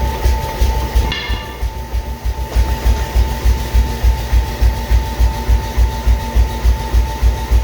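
A machine thumping in an even rhythm, about three low beats a second, over a steady high hum.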